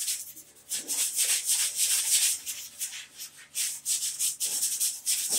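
Sandpaper rubbed by hand over the rusty, flaking-paint sheet-metal fender of a riding lawn mower: quick back-and-forth scratchy strokes, about three to four a second, with a brief pause near the start.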